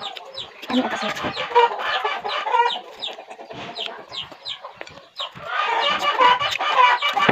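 Chickens clucking repeatedly, getting louder in the last two seconds.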